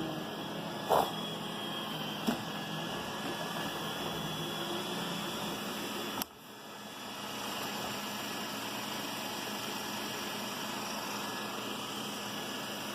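iRobot Roomba 960 robot vacuum running on carpet, a steady whirring hum from its suction fan and brushes. Two short knocks come about one and two seconds in, and about six seconds in the sound drops off suddenly, then builds back up over the next couple of seconds.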